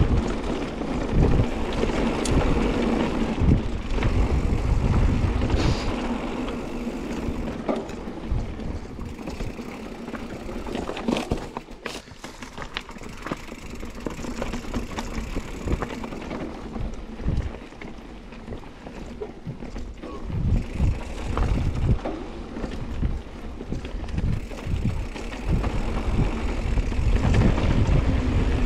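Mountain bike being ridden along a dirt trail: tyres rolling over the ground, wind buffeting the microphone, and scattered sharp rattles and knocks from the bike over bumps. It eases off for a while around the middle and picks up again towards the end.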